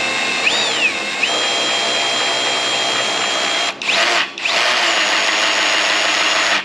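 Power drill running in reverse to drive a formula-car quick lift down, lowering the car's nose. A steady whine, wavering in pitch about half a second in, stopping briefly a little before four seconds in, then cutting off suddenly at the end; the drill is not at full speed.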